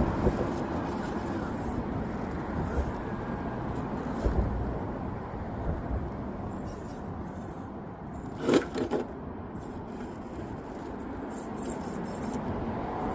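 Radio-controlled rock crawler working its way over rough terrain: a steady low rumble of drivetrain and tyres scrabbling, with a short cluster of sharp clacks about eight and a half seconds in.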